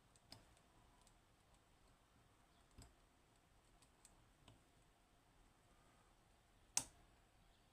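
A few faint, scattered clicks of picking tools working the levers inside a Western Electric 30B eight-lever lock, with one sharper click near the end.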